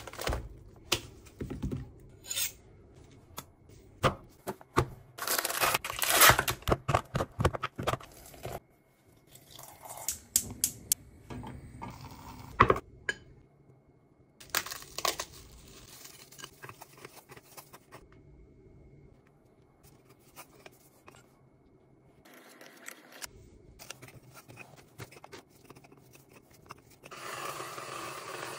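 Kitchen food-preparation sounds: packaging tearing and crinkling, with scattered clicks, knocks and clinks of utensils and dishes. A steady hiss starts near the end.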